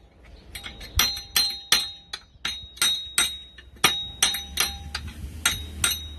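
A steel garden fork being knocked down onto its new wooden handle, with repeated sharp metallic strikes about two or three a second. The tines ring briefly after each strike.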